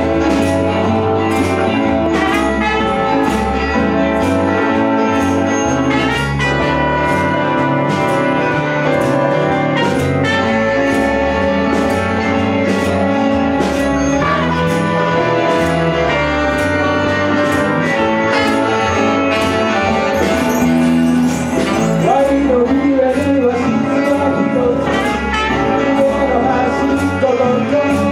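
A live band plays an upbeat instrumental tune on tatami-built instruments, with a large round banjo-like instrument, a glockenspiel, flute and trumpet. A light percussive tick keeps time about twice a second.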